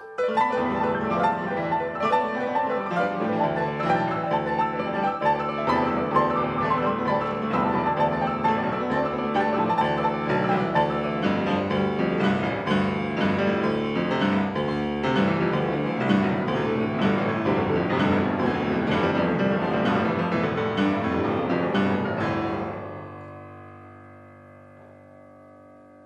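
Six grand pianos played together by twelve pianists: a fast, busy passage of hammered notes and chords. The playing stops short about three-quarters of the way through, and the strings are left ringing and fading away.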